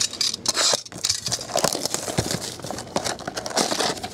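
Plastic shrink-wrap being torn off a trading-card hobby box and crinkled, mixed with the cardboard box being handled and its lid opened: a run of irregular crackles and light taps.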